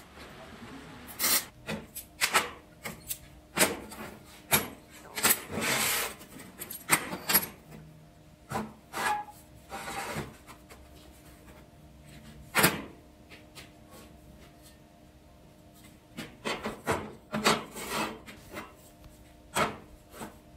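Steel pieces being handled on a steel welding table: irregular knocks and clanks with a few longer scraping slides as plates and bar stock are moved and set in place, with a lull in the middle.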